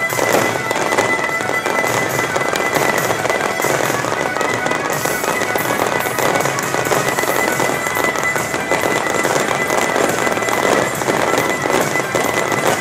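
Aerial fireworks shells bursting in a dense, continuous barrage with rapid crackling, over the show's accompanying music.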